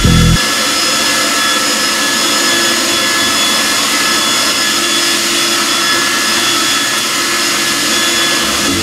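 Handheld hair dryer running steadily: an even rush of blown air with a constant motor whine.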